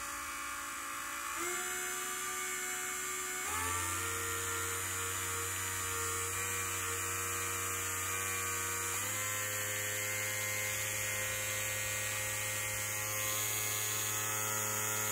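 Small brushed DC motor from an inkjet printer, spinning in a 3D-printed plastic housing with a computer-fan bearing, running with a steady whine. The pitch steps up three times, about a second and a half in, at three and a half seconds and at nine seconds, as the supply voltage is raised toward 12 volts.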